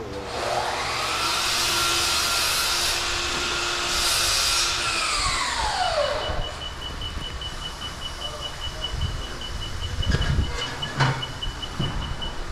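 A motor spins up, runs steadily with a hiss for about four seconds, then winds down. A rapid, high-pitched beeping follows, with a couple of knocks near the end.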